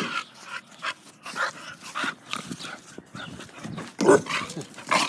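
Dogs in rough play, making short, irregular play noises, with one louder burst about four seconds in.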